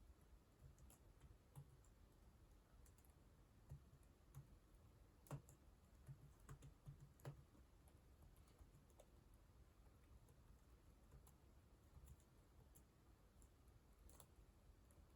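Faint computer keyboard keystrokes at an uneven, unhurried pace, typical of a beginner doing touch-typing drills. A few keys are struck harder between about five and seven seconds in.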